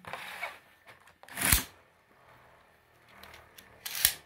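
Beyblade spinning top launched with a ripcord launcher about a second and a half in: a quick loud rasp of the ripcord being pulled as the top drops into the plastic stadium, then the top spinning quietly. A sharp click near the end.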